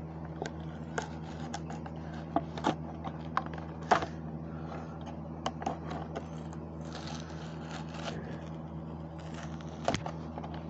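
Hot Wheels toy truck packaging being opened by hand: scattered clicks and crinkles with short scrapes, the sharpest snaps about four seconds in and near the end, over a steady low hum.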